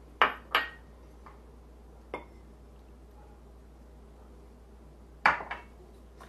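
Glass clinks: a glass measuring cup and a wire whisk knocking against a glass mixing bowl as flour is tipped in for a sourdough starter feeding. Two sharp clinks near the start, one about two seconds in, and another pair near the end, each ringing briefly.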